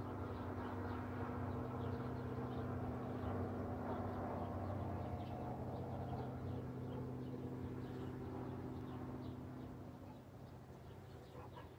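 Small birds chirping, short high notes repeating over and over, above a steady low hum that fades about ten seconds in.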